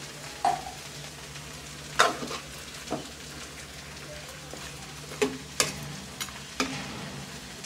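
Steel spoon stirring chicken and potato curry in a metal pot, knocking sharply against the pot about seven times, over the faint steady sizzle of the curry cooking on the stove.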